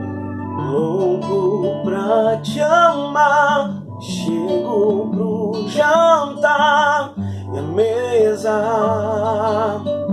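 A man singing wordless runs with wavering vibrato over an acoustic guitar accompaniment, in phrases that break off every couple of seconds.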